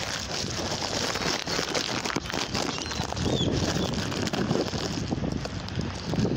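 Gusty wind buffeting the phone's microphone, with a couple of faint high bird chirps.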